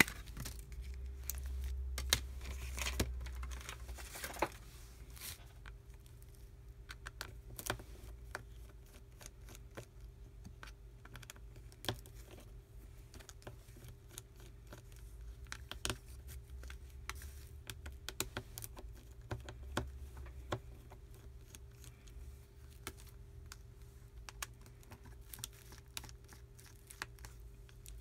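Faint, irregular clicks, ticks and scratches of a Samsung Galaxy S4 being taken apart by hand: plastic parts handled and a small precision screwdriver working out the tiny frame screws. The handling is scratchier in the first few seconds, and a faint steady hum runs underneath.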